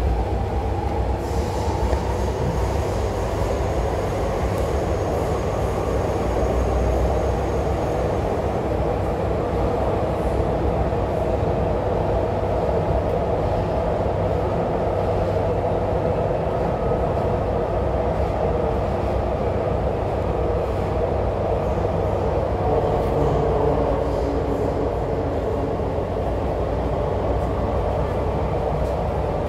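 MTR C-Train electric multiple unit running, heard inside the carriage: a steady rumble with a whine that slowly drifts up and down in pitch.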